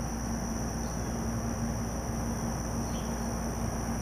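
Steady high-pitched insect chorus over a steady low hum, with a couple of faint short chirps.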